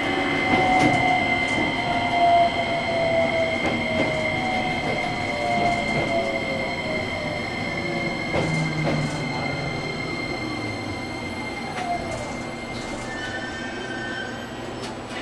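JR Kyushu 815 series electric train's VVVF inverter traction motors whining in several tones that slide steadily downward in pitch, with rail and wheel noise, as the train brakes towards a stop. The whole sound slowly grows quieter.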